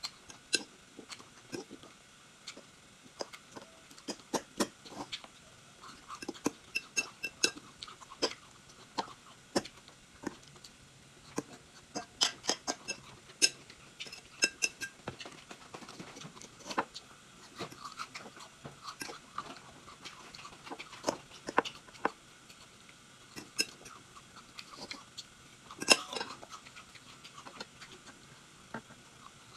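Chewing and wet mouth clicks of someone eating salad and whole-grain toast, with occasional clinks of a metal fork against the plate. The sounds come as irregular short clicks and crackles, with one louder click near the end.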